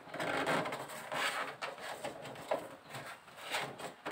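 Hands rubbing and pressing a foil-faced foam heat-insulation pad against the underside of a car bonnet: several separate rustling, scraping strokes.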